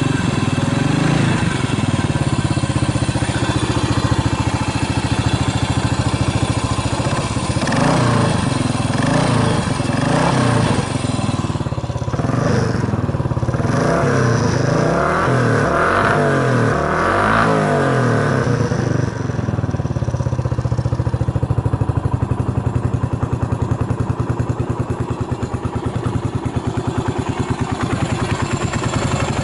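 Yamaha SR400's air-cooled single-cylinder four-stroke engine running, revved with a few throttle blips in the middle so the pitch rises and falls, then settling back to a steady idle. It revs up cleanly, with no abnormal noises as the seller judges it.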